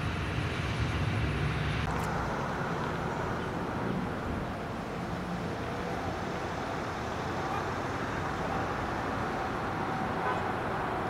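Steady vehicle rumble with an even hiss, the low rumble heaviest for the first two seconds.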